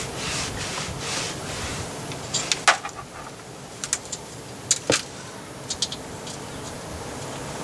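Hand tools on the nuts holding a rear diff centre to the axle housing: scraping and rattling at first, then a handful of sharp metallic clinks spaced a second or so apart.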